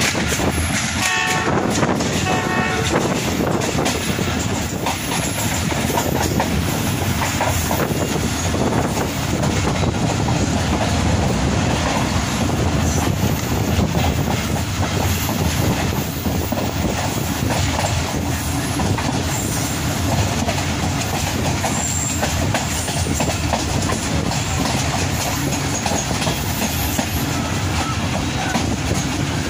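A passenger train running on the line, heard from an open coach door: a steady rumble of wheels on rails with clickety-clack over the rail joints. A train horn sounds twice in short blasts near the start.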